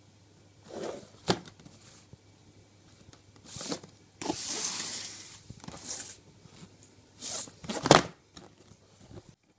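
Gift wrapping paper being torn and crumpled as a present is unwrapped, in irregular rustling bursts with one longer tear about four seconds in.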